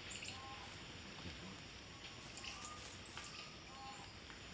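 Squirrel monkeys chirping: many short, very high-pitched calls, some rising and some falling, with a quick run of them about halfway through and a few fainter, lower whistled notes in between.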